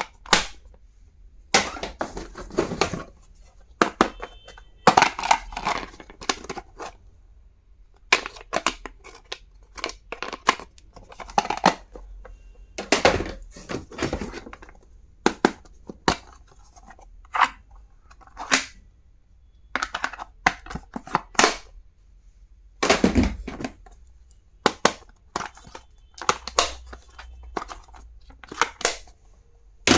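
Stationery being unboxed by hand: packaging rustling and tearing, mixed with irregular sharp clicks and knocks as plastic items are opened, closed and set down.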